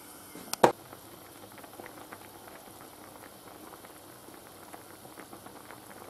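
Stock with pork, ham and peppers bubbling at the boil in a wide frying pan: a soft, steady stream of small bubbling pops. A single sharp click sounds about half a second in.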